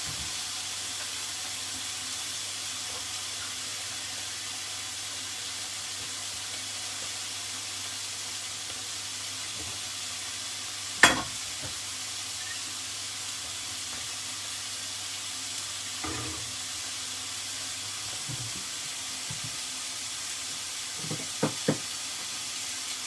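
Butterflied chicken breasts sizzling steadily in hot oil in a frying pan over high heat. A single sharp knock comes about halfway through, and a few lighter knocks near the end.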